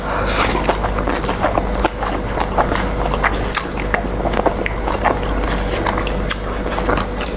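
A person slurping and chewing Korean instant noodles close to the microphone, with a steady run of small wet mouth clicks and smacks.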